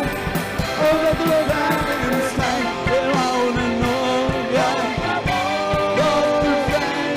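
Live rockabilly band playing: a voice singing over electric guitar, upright double bass and a steady drum beat.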